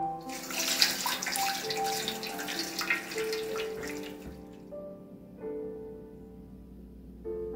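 Water poured from a pot into a square metal baking pan, splashing for about four seconds and then stopping, to make a warm water bath for melting butter. Soft piano music plays throughout.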